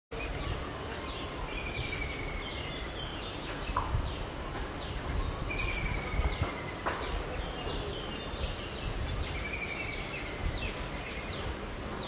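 Wild birds calling: many short falling chirps, with a thin falling whistle that comes back about every four seconds, over a low steady rumble of background noise.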